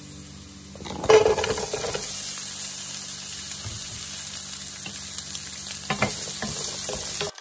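Minced garlic frying in hot oil in a pan; about a second in, a burst of louder sizzling and clatter as diced onions go into the pan, then a steady sizzle with a few short scrapes of a spatula around six seconds in. The sound cuts off suddenly near the end.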